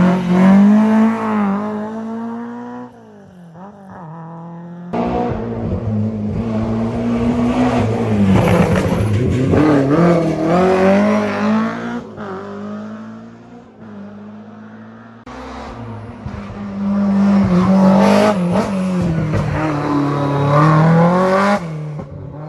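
Rally cars at full throttle, engine notes climbing and dropping through gear changes, heard in several short clips with abrupt cuts between them.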